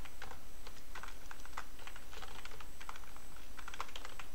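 Computer keyboard being typed on: quick, irregular runs of key clicks with short pauses between them.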